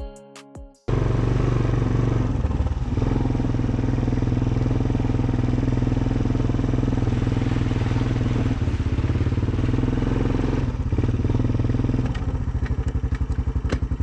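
ATV engine running steadily under way. Near the end its sound changes to a quicker, even pulsing.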